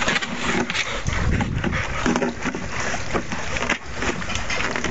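Blue plastic watering can being pawed, bitten and knocked about on grass by a dog: repeated hollow plastic knocks and scrapes, with short vocal noises from the dog mixed in.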